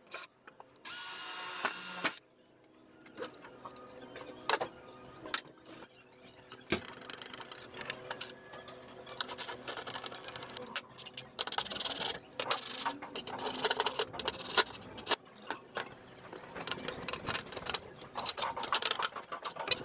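Makita cordless drill runs in one steady burst of just over a second, about a second in, drilling through a fibreglass hatch lid. Irregular knocks, clicks and clattering from hand work on the bench follow, busiest in the second half.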